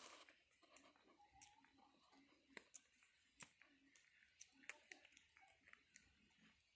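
Java macaque grooming a person's hair close to the microphone: faint, scattered small clicks and smacks from its mouth and fingers as it picks through and nibbles at the hair.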